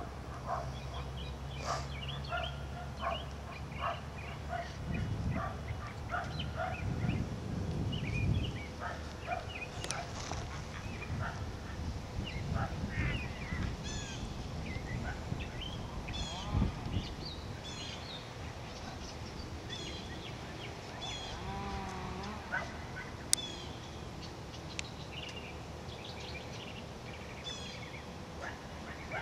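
Small birds chirping and calling over and over. A low rumble comes in about five seconds in and fades by about nine seconds.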